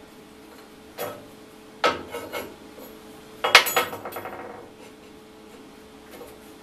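Steel parts of a homemade texturing tool knocking, clinking and scraping against each other and a steel workbench as they are handled and fitted together. There is a knock about a second in, a few clinks around two seconds, and the loudest clatter about three and a half seconds in, which rings briefly.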